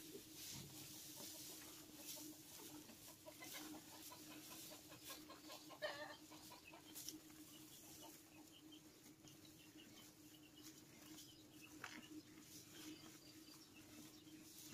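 Faint farm-shed ambience: a steady low hum with scattered small ticks and rustles, and a short hen-like cluck about six seconds in.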